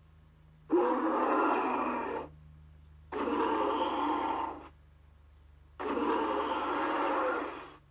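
King Kong movie roar sound effects: three separate roars, each about one and a half to two seconds long, with short quiet gaps between them.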